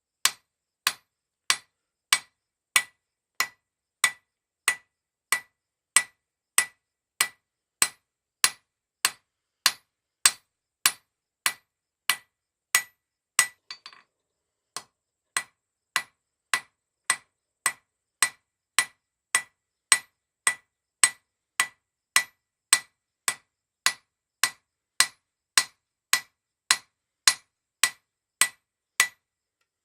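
Blacksmith's hammer striking steel bar on an anvil in a steady rhythm, about one and a half blows a second, each blow ringing at a clear high pitch. The hammering breaks off briefly about halfway through, then resumes at the same pace.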